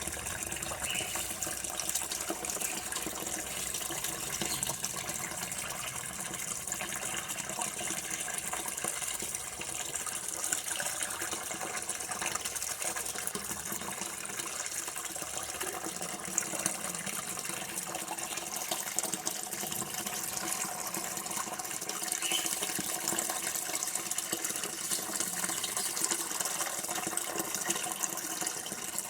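Water running steadily from a tap, an even splashing flow with no breaks.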